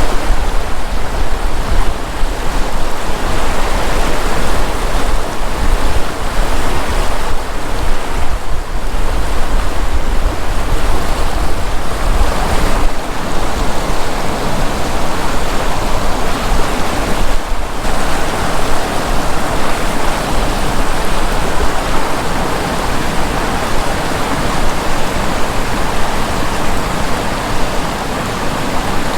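River water rushing steadily past a sandbar, a loud continuous roar of flowing water, the river running high.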